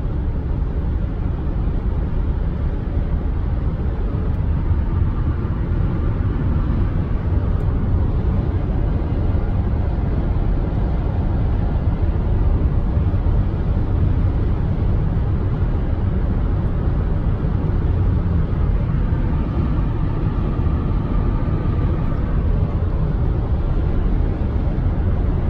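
Steady road noise inside a car cruising on a highway at about 70 mph: tyre and wind noise, strongest in the low end and unchanging throughout.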